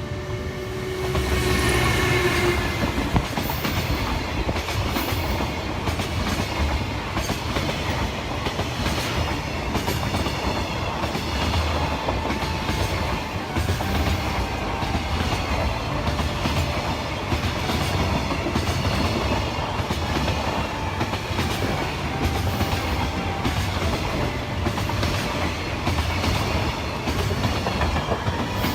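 Train passing, its wheels clattering over the rail joints (gatan-goton) in a steady repeating rhythm. The sound gets louder about a second in and then holds.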